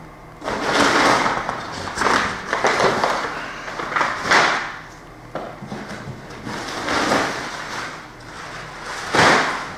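Crumpled brown kraft packing paper rustling and crackling as it is handled and pulled out of a cardboard box, in repeated noisy bursts, the loudest near the end.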